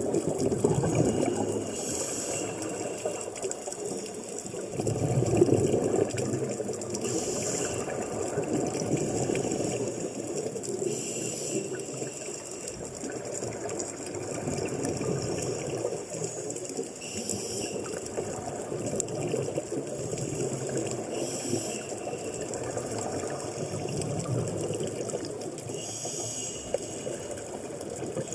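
Water sloshing and gurgling in a flooded underwater camera housing (an Olympus TG-2 in a PT-053 housing), muffled and continuous, louder about five seconds in. A short hiss comes about every four to five seconds, the rhythm of a scuba diver's regulator breathing.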